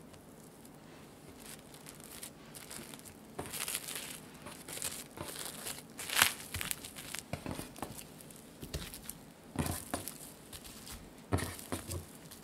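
Plastic cling film crinkling and rustling in bursts as a lump of cookie dough is wrapped in it and pressed flat, loudest a few seconds in. There are a couple of soft knocks on the table near the end.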